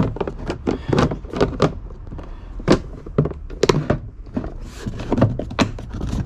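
Irregular knocks, clunks and thunks of gear being handled and set down, about two or three a second.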